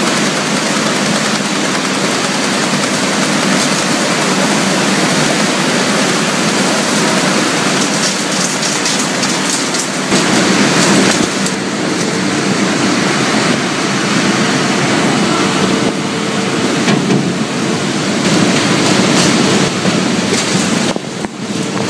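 Plastic shredder running under load as plastic film and big bags are fed into its hopper and torn up by its rotating and fixed blades: a loud, steady rushing noise with crackling of the film, growing heavier about halfway through.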